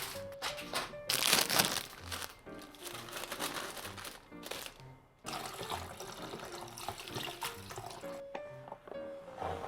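Background music with a steady bass pulse, mixed with intermittent rustling and splashing noises.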